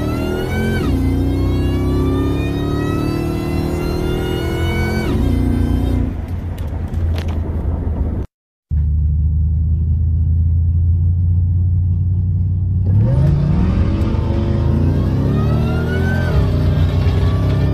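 Ford SVT Lightning's supercharged V8 at full throttle, heard from inside the cab: the revs climb and drop back at two upshifts of the automatic. After a brief break it holds a low steady rumble for about four seconds. It then pulls hard again, climbing through another upshift.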